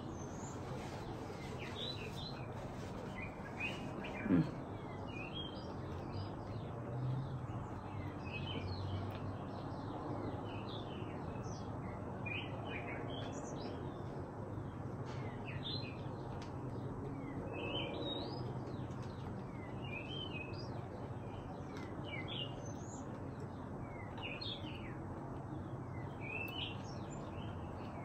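Small birds chirping again and again in the background over a steady low ambient hum, with one short low sound about four seconds in.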